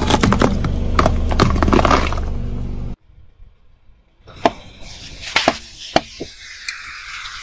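A car tyre crushing a plastic toy egg packed with water beads: rapid sharp cracks and crunches over a steady low hum, cut off suddenly at about three seconds. Then a tyre rolls onto aerosol spray cans on asphalt: several separate sharp cracks, and a can bursts open and hisses steadily as it sprays out.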